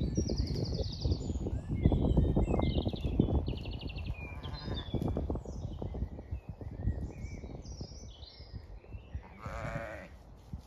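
Zwartbles sheep bleating, once about halfway through and again near the end, with short high bird trills early on and a low rustling underneath.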